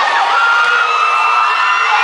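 Large crowd of teenage students cheering and screaming, many high-pitched shouts and whoops held and overlapping.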